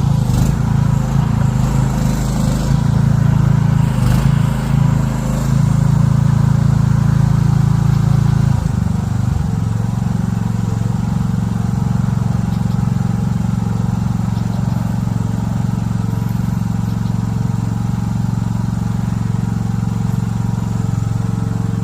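Mini excavator's small engine running under work. It is uneven, with a few knocks, for about the first eight seconds; its note dips briefly near nine seconds, then it runs steady.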